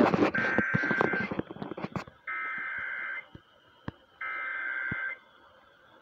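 Emergency Alert System header for a tornado warning over a radio speaker: three bursts of SAME digital data tones, each about a second long with about a second's gap between them. Clicks and handling noise during the first two seconds.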